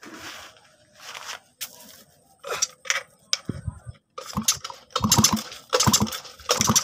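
Handling noises: irregular clicks, scrapes and rubbing as hands work a spark plug and its plug cap against a grass cutter engine. They come thicker in the last two seconds.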